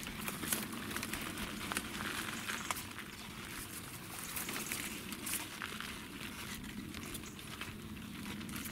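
Rustling and scattered small crackles of hands pulling onions from the soil and handling their leaves.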